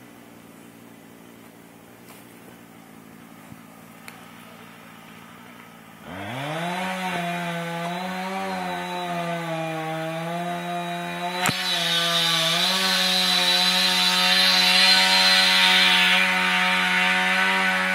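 Two-stroke chainsaw, a Husqvarna 455 Rancher, idling quietly, then opened up to full throttle about six seconds in and cutting into the tree. Its pitch dips and recovers under load, with a sharp click near the middle, then rises a step and runs loud to the end.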